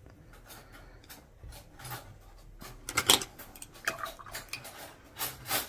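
Light clicks and knocks of a wooden colored pencil being handled and laid down on a tabletop, with faint scratching of pencil on paper between them. The loudest knock comes about three seconds in.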